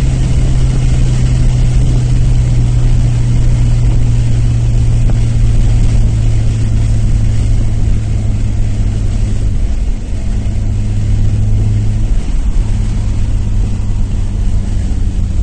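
Nissan Maxima's 3.5-litre V6 with aftermarket headers and exhaust running steadily at idle, its low tone shifting slightly in pitch a little past halfway; the owner describes a slight misfire at idle.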